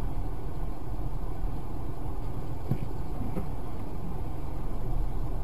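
Car running, heard from inside the cabin: a steady low rumble of engine and road noise.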